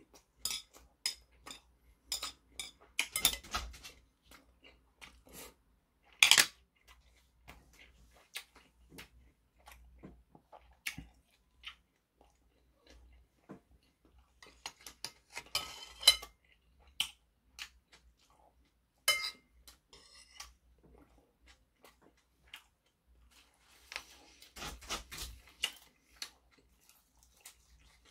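Eating sounds: a man chewing mouthfuls of food while metal chopsticks and a spoon click and scrape against porcelain bowls, in scattered short clinks, the sharpest about six seconds in.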